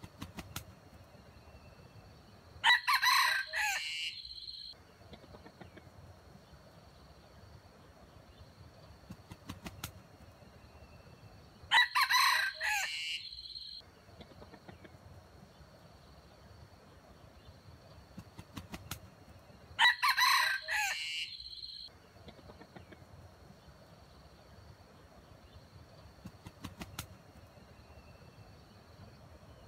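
Red junglefowl rooster crowing three times, each crow about two seconds long and the crows roughly eight seconds apart.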